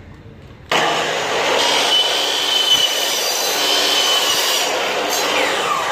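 Makita miter saw switched on less than a second in, its motor running through a cut of U-channel with a high ringing screech in the middle, then released near the end with a falling whine as the blade spins down.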